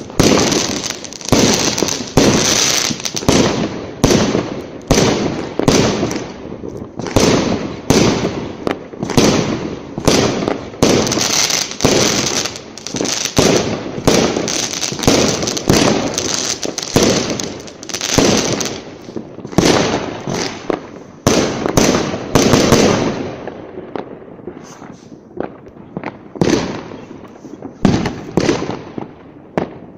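New Year fireworks going off: a dense barrage of overlapping bangs and crackles, several a second, that thins out to fewer, quieter bangs near the end.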